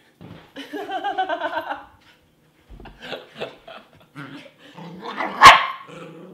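Puppy growling in rough play, with a single loud, sharp bark about five and a half seconds in, then more low growling.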